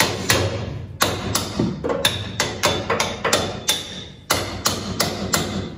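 Steel square-tube crossbar being knocked down into place on a truck's frame rails by hand, without a hammer: about fourteen sharp metal-on-metal knocks, two or three a second, each with a brief ring.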